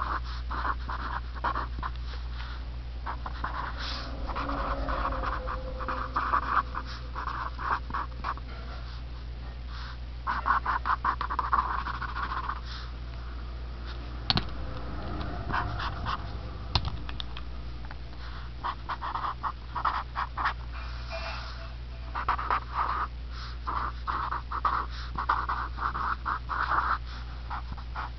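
Marker tip squeaking and scratching across paper in short bursts of strokes as letters are written, with pauses between words, over a steady low hum.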